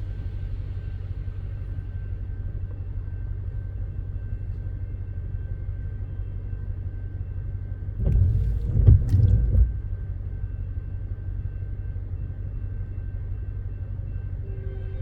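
Metrolink commuter train running past at a grade crossing: a steady low rumble, with a louder cluster of knocks and thumps about eight to ten seconds in.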